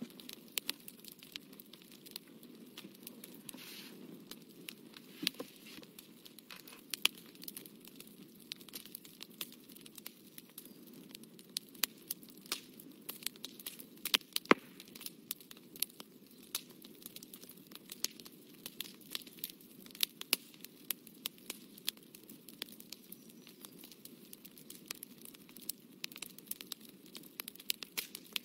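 Pencil and paper being worked: irregular light clicks and scratches, several a second, over a low steady hum.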